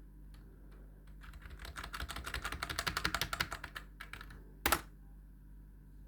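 Computer keyboard keys pressed in a quick run of clicks for a few seconds, then one louder single keystroke.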